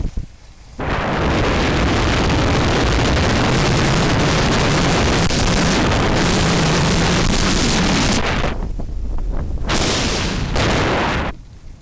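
Loud wind rushing over the microphone while skiing downhill. The rush drops out briefly near the start, again about nine seconds in, and just before the end.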